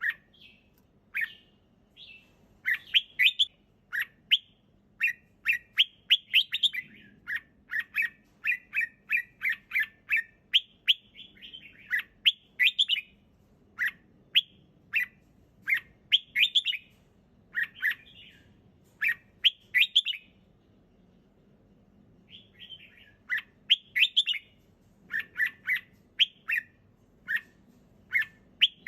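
Red-whiskered bulbul singing: quick phrases of short, clear chirping notes, with a pause of about two seconds about two-thirds of the way through.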